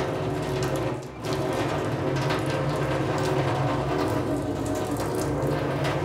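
Tap water running steadily from a faucet and splashing into a stainless steel sink, dipping briefly about a second in. It is hot water coming through a portable instant electric water heater that has just started heating.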